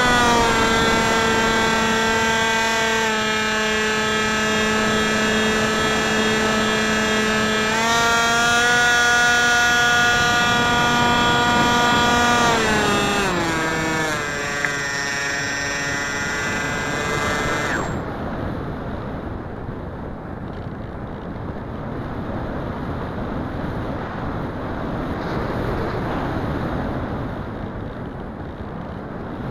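Electric motor and propeller of a Wing Wing Z-84 flying wing, heard from its onboard keychain camera, running with a high pitched whine that changes with throttle. The pitch drops a little, rises again, then slides down and cuts off a little over halfway through, leaving only wind rushing over the microphone.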